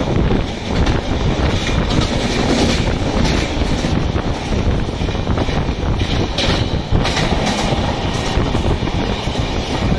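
Running sound of a fast LHB passenger train, heard from an open coach door: a steady rumble of wheels on rail with wind, and a few sharper clacks about six to seven seconds in. Near the end an electric freight locomotive with container wagons passes close on the next line.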